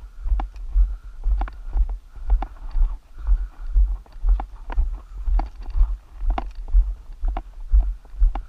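Footsteps on a gravel dirt road at a steady walking pace, about two steps a second, each with a deep thud.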